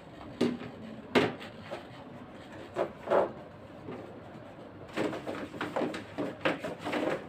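Paper and cardboard bags being lifted, shifted and set down over objects on a tabletop: two sharp knocks in the first second or so, then a run of rustling, scraping handling noises near the end.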